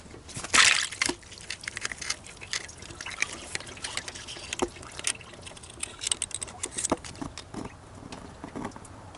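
Engine coolant trickling and dripping from the opened thermostat housing, mixed with quick clicks and scrapes as the old thermostat is worked out.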